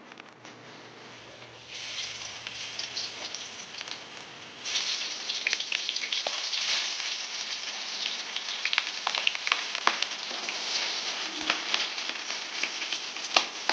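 Food sizzling and crackling in hot oil in a pan. The sizzle gets louder in two steps, about two seconds in and again about five seconds in.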